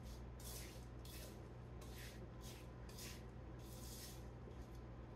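Silicone spatula tossing cut strawberries coated in sugar and cornstarch in a mixing bowl: faint, soft swishing strokes, roughly one or two a second.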